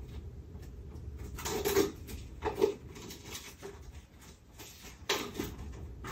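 Plastic shrink-wrap being peeled off a small cardboard product box, heard as a few short crinkling rustles, the longest about a second and a half in and another near the end.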